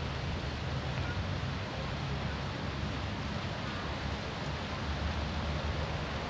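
Steady rushing of a fast-flowing river, with low wind rumble on the microphone.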